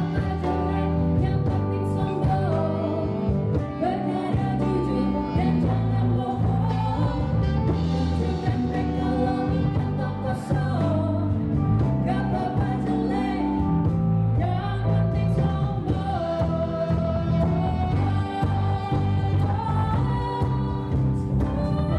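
A small live band playing a pop song: a woman and two men singing together, backed by cajon, bass guitar and keyboard.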